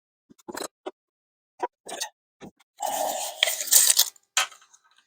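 Small workshop handling noises while a router-table setup is adjusted: a series of light clicks and knocks, with a louder scraping rattle of about a second and a half beginning about three seconds in.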